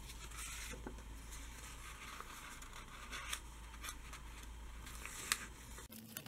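Sheet of printed adhesive sticker paper being handled on cardboard: paper rustling and crinkling as the corner is bent to start peeling off the backing, with one sharp click about five seconds in, over a low steady hum.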